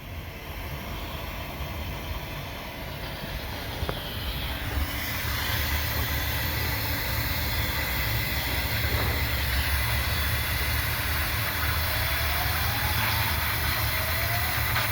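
Handheld hot-air welding gun blowing steadily as PVC pool liner membrane is heat-welded, a continuous hiss over a low hum that grows a little louder about five seconds in.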